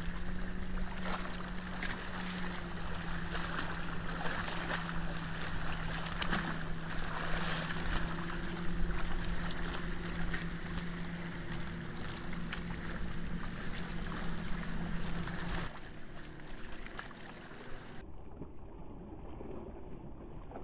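Wind and choppy lake water lapping at a rocky shore, with a steady low hum underneath. The hum stops abruptly about three quarters of the way through, leaving fainter, duller wind noise.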